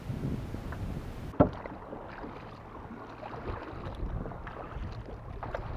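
Kayak being paddled through calm water: paddle strokes dipping and dripping, with small scattered knocks. A single sharp knock stands out about a second and a half in.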